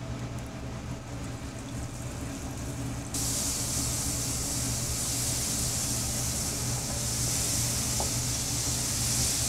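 Flour-dredged veal cutlets sizzling as they fry in hot olive oil in a skillet, over a steady low hum. About three seconds in, the sizzle suddenly becomes much louder and hissier.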